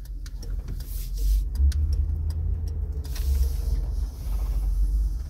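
Car engine and road rumble heard from inside the cabin while driving, with a few light clicks in the first second or so.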